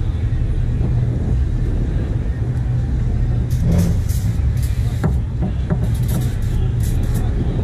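An engine running steadily at a low drone, with several short high hiss-like bursts in the second half.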